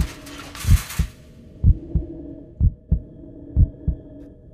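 Heartbeat sound effect: paired low thumps, lub-dub, repeating about once a second over a steady low drone. A hiss fades out about a second in.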